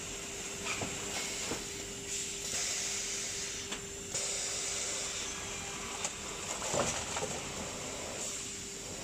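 Plywood hot press line's automatic unloading and stacking conveyor running: a steady machine hum with hiss that swells twice, and a few scattered knocks as plywood panels are moved on the chain conveyor.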